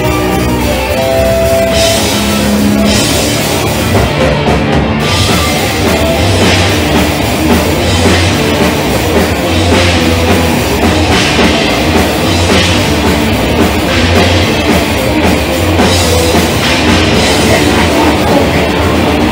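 A black metal band playing live: distorted guitars and bass with drums. It opens on held notes, and about four seconds in the full band comes in with dense, fast drumming.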